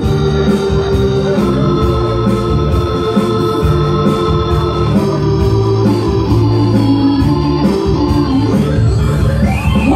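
Live instrumental Serbian folk music: an electronic arranger keyboard plays organ-like sustained chords and melody over a steady drum beat, with a rising pitch slide near the end.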